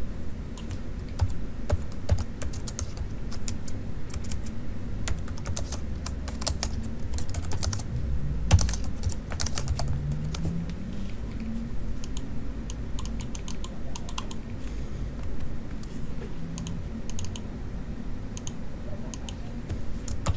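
Typing on a computer keyboard: irregular bursts of keystrokes with short pauses between, busiest in the middle of the stretch.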